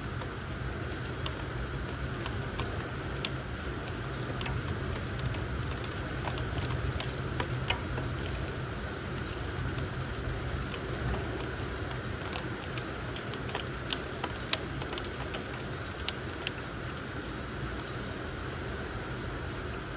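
Steady rain during a thunderstorm, with many scattered sharp drops ticking on a hard surface over a low, steady rumble.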